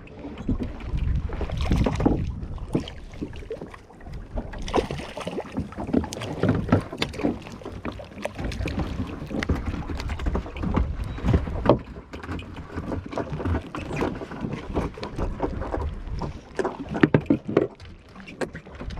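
A fishing boat at sea: a constant low rumble with irregular knocks and splashes, as water slaps against the hull.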